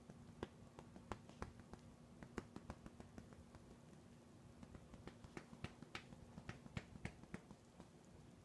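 Near silence: room tone with a faint steady hum and scattered faint sharp clicks at irregular intervals, most of them clustered from about five to seven seconds in.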